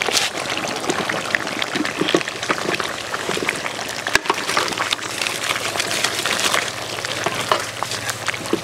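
Goose and potato curry bubbling and sizzling in a large metal pot, with a steady crackle, as chunks of raw potato are tipped in and stirred through with a wooden spatula.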